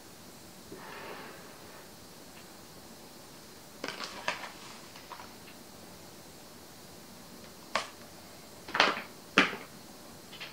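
A spoon knocking and clicking against a glass mixing bowl as granulated sweetener is spooned into the dough: a few light clicks about four seconds in, then three sharper knocks near the end, the loudest two about half a second apart. A soft paper rustle from the sweetener pouch about a second in.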